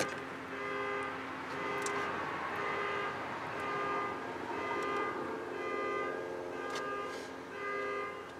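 A car alarm going off, repeating short electronic tones in a pattern that keeps changing.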